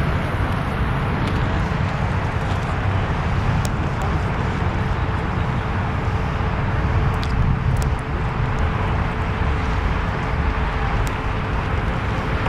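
Steady road and tyre rumble inside a moving car's cabin, with a faint steady tone beneath it.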